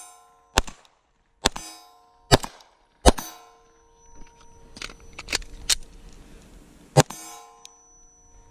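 Glock 19 Gen 5 9mm pistol firing five shots at steel plates. Four shots come in quick succession, then one more about seven seconds in, each followed by the ring of struck steel.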